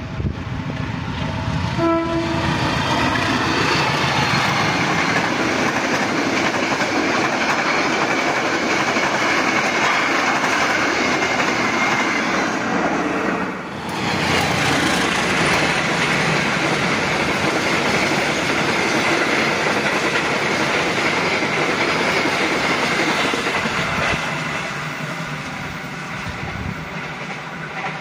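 Indonesian diesel locomotive sounds a short horn blast about two seconds in, then its passenger train rushes through the station at high speed, the wheels rumbling and clattering over the rails for about twenty seconds before the sound fades near the end.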